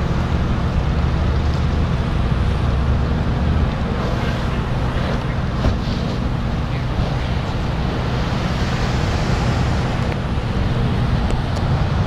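A parked fire engine running steadily, its engine and pump driving the hose line, with wind gusting on the microphone.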